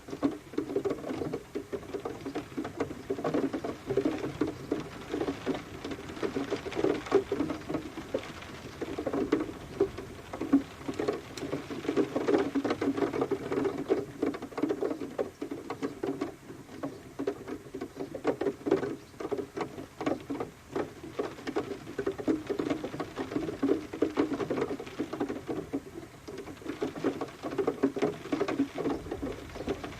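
Rain pattering, a dense, irregular stream of drops that keeps on steadily.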